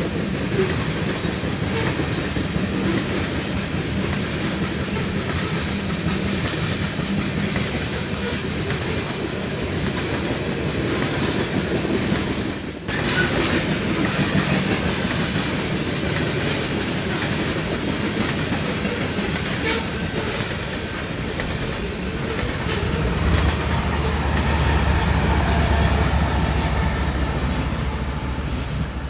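BNSF freight train of covered hopper cars rolling past, with steady wheel-on-rail noise and clickety-clack over the rail joints. From about 23 s in, a low steady drone comes in as a diesel locomotive in the train passes.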